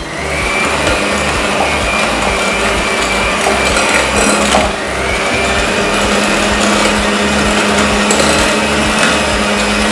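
Binatone electric hand mixer running steadily, its beaters creaming butter and brown sugar. The whine dips briefly in pitch about halfway through, then settles back.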